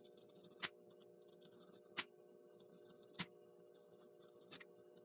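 Faint cutting of foam board by hand: a short soft scraping, each ending in a sharp click, four times about a second and a quarter apart, over a steady low hum.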